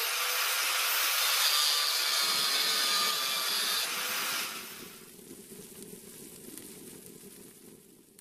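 Angle grinder sound effect cutting metal: a loud, high grinding hiss with a faint steady whine, which drops off sharply about four and a half seconds in and fades away as a quieter low noise.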